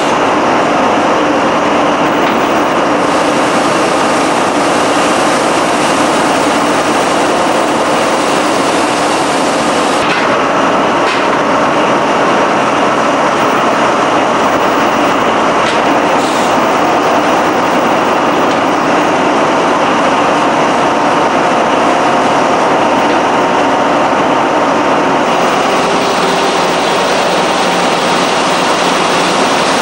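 Engine-room machinery of the Belgian Navy frigate Wielingen (F910) running: a loud, steady, dense mechanical noise that holds level throughout.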